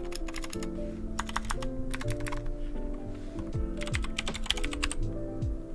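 Typing on a 60% mechanical keyboard with clicky blue switches, keystrokes coming in quick bursts with short pauses between. Background music with a deep falling bass beat plays underneath.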